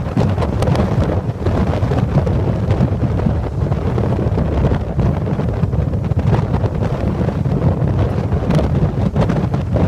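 Strong, gusty wind of 10 to 15 m/s or more, the back-side winds after a typhoon has passed, buffeting the microphone in a heavy low rumble with constant flutter and gust blasts.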